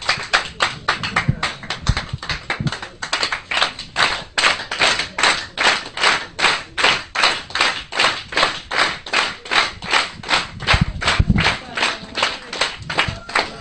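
A crowd clapping in unison, a steady beat of about three claps a second, with a few low thuds mixed in.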